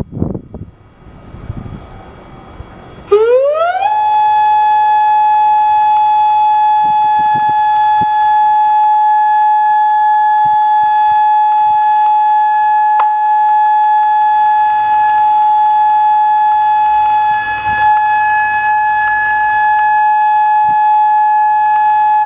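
Outdoor tornado warning siren starting up about three seconds in: its pitch rises for about a second, then it holds one loud, steady tone with overtones. This steady signal is sounding a tornado warning.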